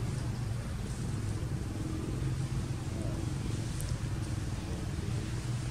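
A motor running with a steady low rumble that does not change.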